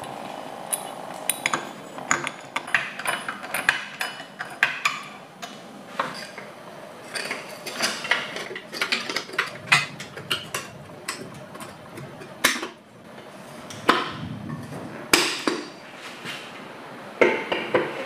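Metal and plastic parts of an electric coffee grinder being handled and fitted together by hand: irregular clicks, clinks and light knocks.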